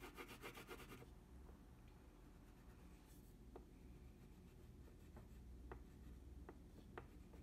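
Faint scratching of a Crayola wax crayon rubbed back and forth on paper as a background is coloured in. Quick, even strokes come in the first second, then lighter, sparser strokes with a few small ticks.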